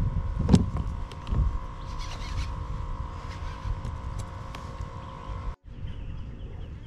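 Wind rumbling on the microphone, with a steady faint hum and a few sharp knocks of gear on the kayak, the loudest about half a second in.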